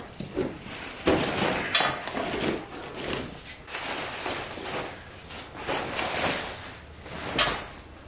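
Plastic wrapping rustling and crinkling as it is pulled off a new steel three-point quick hitch, with a few sharp knocks and scrapes as the hitch is shifted and tipped upright.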